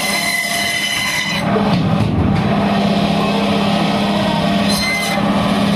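Band saw running with a steady hum as its blade cuts through fish, with a high whine rising and falling as the pieces are pushed through.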